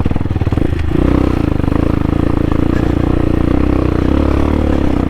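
CSC TT250 dual-sport motorcycle's single-cylinder engine running steadily while riding, its note settling about a second in and holding.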